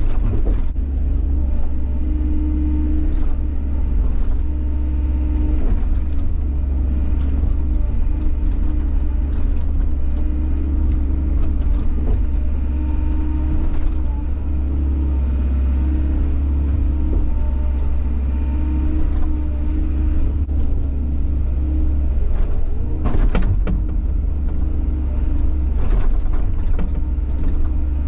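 Bobcat 145 excavator's diesel engine running steadily under load while its ripper tooth tears through frozen ground. Sharp knocks and clanks come from the frozen ground breaking, with a knock near the start, the loudest cluster about 23 seconds in, and more near the end.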